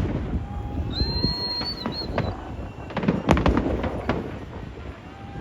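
Fireworks going off in a run of bangs and crackles, densest about three seconds in, with a short whistle about a second in.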